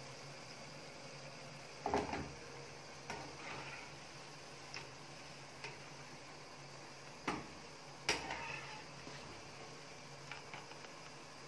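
Metal slotted spatula clicking and scraping against a frying pan about eight times as pieces of pinwheel bread are turned and lifted out of hot oil, the loudest knocks about two seconds in and about eight seconds in. Under it, a faint steady sizzle of deep-frying oil.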